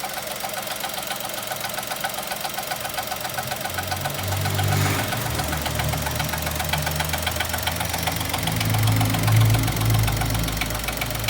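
Chevrolet Onix 2020's three-cylinder engine idling with a rapid, even, tinny clatter like a machine gun, which comes only while the brake pedal is pressed. A mechanic blames the brake vacuum pump; the dealer calls it characteristic of the three-cylinder engine. The deeper engine hum swells about four seconds in and again around nine seconds.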